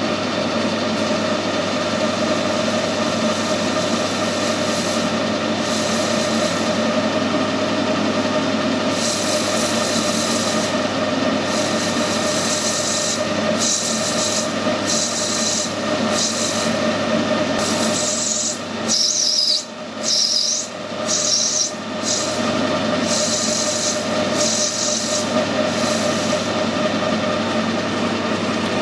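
Metal-turning lathe running steadily while a tool cuts a ring groove. A high, hissing scrape of the cut comes and goes in short spells from about a third of the way in. About two-thirds in, the sound drops twice and a brief wavering squeal sounds.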